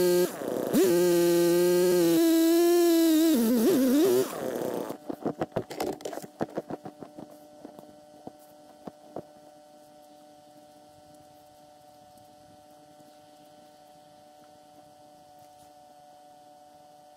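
Gas-powered ice auger's engine running hard while drilling through the ice. It dips briefly about half a second in, then falls in pitch and stops about four seconds in. A string of knocks and clatters follows, then a faint steady hum.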